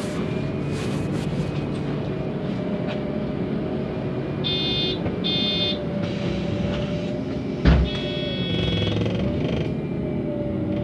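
MAN NL 273 T3 city bus running on its LPG engine with a steady drone. Two short electronic beeps sound about midway, then a single thump, then a longer beeping tone.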